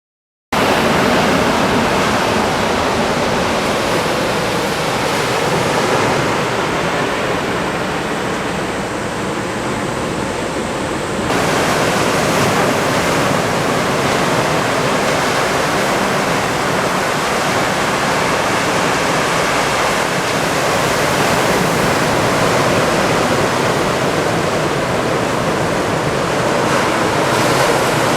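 Ocean surf breaking continuously, a steady wash of waves with no pauses; the sound shifts abruptly about eleven seconds in, when it gets brighter.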